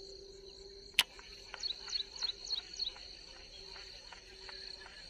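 Insects trilling steadily at a high pitch. There is one sharp click about a second in, then an animal gives a run of about five quick falling chirps.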